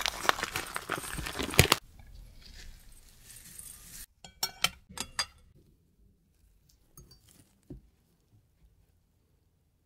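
Dry shredded coconut rustling and crackling as gloved fingers crumble it into a glass bowl, loudest in the first two seconds. A little after four seconds, a few quick clinks of metal forks against a glass bowl, then only faint small taps.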